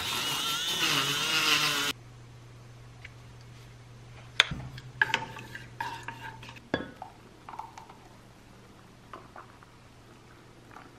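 Handheld electric milk frother whirring as it whisks a cup of matcha, cutting off sharply about two seconds in. Then light clinks and knocks of a saucepan and bottle on a stovetop over a low steady hum.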